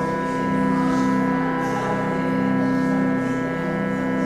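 Allen CF-15 electronic church organ holding a steady, sustained chord.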